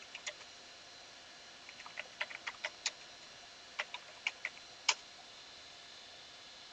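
Computer keyboard typing in short bursts of keystrokes, with one louder keystroke about five seconds in.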